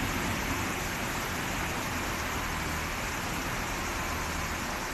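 Dump truck's diesel engine idling steadily: a low rumble under an even hiss.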